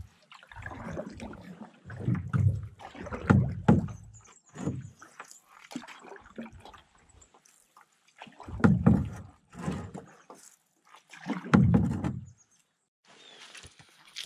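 Paddle strokes of a solo-paddled H2O Prospector canoe on calm water: the blade swishes and gurgles through the water in uneven surges, loudest about two to four seconds in and again twice near the end.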